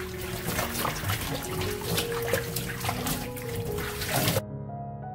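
Water splashing in a stainless steel bowl as a bunch of minari is rinsed, with many small splashes, cutting off suddenly about four seconds in. Soft piano music plays throughout.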